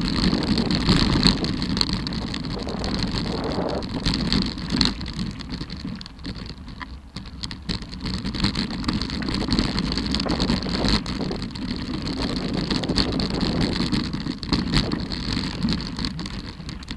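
Mountain bike riding down a loose, rocky trail: a continuous rush of wind on the microphone with the tyres crunching over stones and the bike rattling, with many sharp knocks and clatters from the rough ground.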